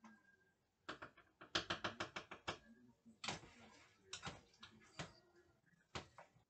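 Light kitchen clatter of utensils and cookware: a quick even run of about eight sharp taps about a second and a half in, then scattered single knocks.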